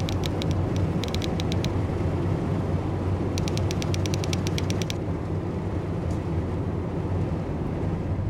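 Steady low rumble of a car driving on a paved road, heard from inside the car. Over it come three runs of rapid typewriter key clicks, about ten a second, in the first five seconds.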